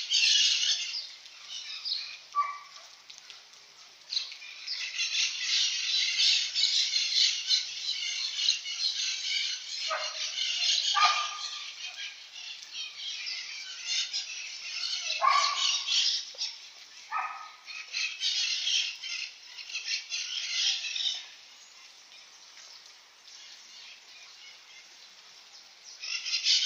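Birds chirping and calling in a dense chatter that comes and goes, with several short calls falling in pitch.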